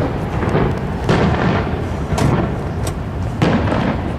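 Aerial fireworks shells bursting in quick succession: about five sharp bangs over a continuous low rumble of booms.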